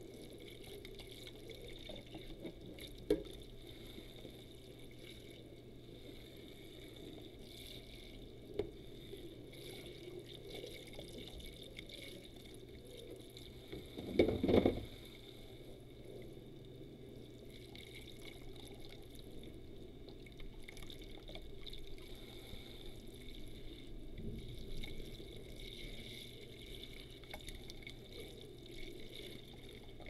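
Tap water running and splashing over plastic food trays and lids as they are rinsed in a basin of soapy foam, with dripping. There are a few sharp plastic clicks, and a louder burst of splashing about halfway through.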